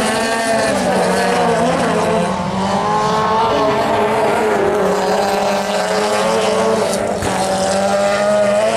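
Several race cars' engines running hard, their notes rising and falling as the cars accelerate, lift and change gear.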